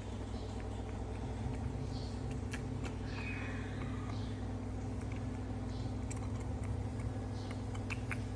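A steady low mechanical hum, with faint scattered clicks and brief soft squeaky sucking noises as a baby macaque drinks milk from a baby bottle.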